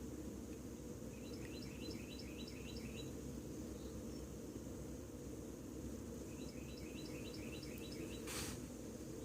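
Carolina wren singing two rolling phrases, each about six or seven quick repeated notes that drop in pitch. A short noisy burst follows just after the second phrase, over a steady low background rumble.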